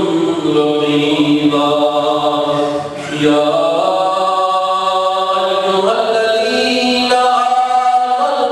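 A man's voice chanting a melodic recitation in long held notes that slide from pitch to pitch, with a short pause for breath about three seconds in.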